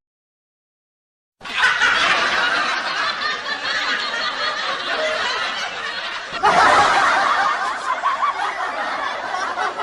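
Comic laughter sound effect: cackling laughter starts about a second and a half in and goes on without a break, with a louder burst about six and a half seconds in.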